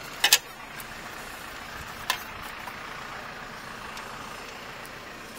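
A vehicle running steadily, with a close, sharp double knock just after the start and a single smaller knock about two seconds in.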